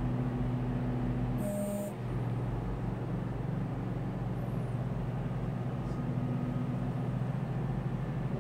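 Engine running steadily with a low, even hum, with a brief high hiss about a second and a half in.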